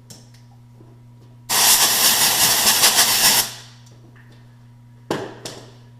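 A pressurized spray hissing for about two seconds, then a shorter second burst near the end, directed at the freshly cut thread on a metal lathe. The spray is either lubricant being applied or air blowing off the chips.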